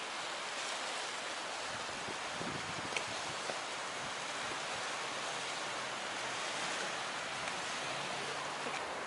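Steady outdoor rushing noise, an even hiss like wind, flowing water or distant traffic, with one sharp click about three seconds in.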